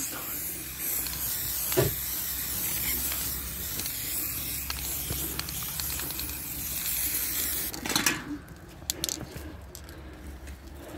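Aerosol spray paint can hissing steadily for about eight seconds, then stopping, with a single knock about two seconds in and a brief clatter as the spray ends.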